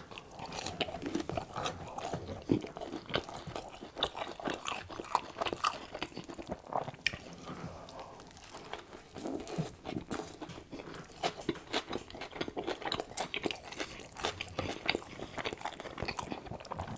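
Close-miked eating: crisp crunching and chewing of a breaded chicken nugget, then bites into a burger and more chewing, a dense run of irregular crunches and clicks.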